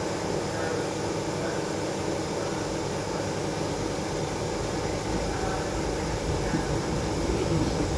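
Steady hum and whir inside a Moscow monorail car, its equipment running while it stands at the platform with doors closed; it starts to move off near the end.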